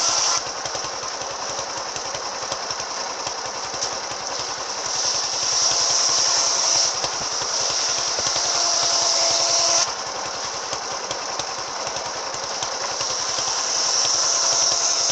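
Circular saw fitted with an AKM saw blade running and cutting wood, with a fast steady pulsing underneath and a high whine that grows louder for a few seconds at a time, around a third of the way in and again near the end, as the blade works through the cut.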